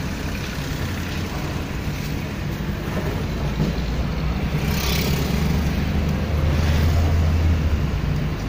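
Car engine and road noise heard inside the cabin while driving slowly: a steady low hum that swells through the middle and drops away shortly before the end. A brief hiss sounds about five seconds in.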